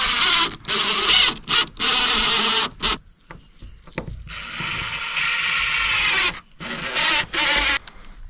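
Insect spray hissing in a series of bursts, some brief and some about two seconds long, each starting and stopping sharply.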